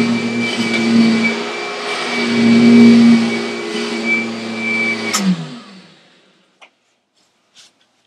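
Vacuum cleaner running as it is pushed back and forth over carpet, its hum swelling and easing with the strokes. About five seconds in it is switched off with a click, and the motor winds down, falling in pitch until it stops.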